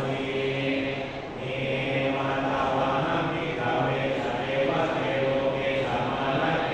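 Buddhist monks chanting in Pali in unison for an amulet consecration rite: several men's voices holding a steady, low drone on nearly one pitch, with a short breath pause about a second in.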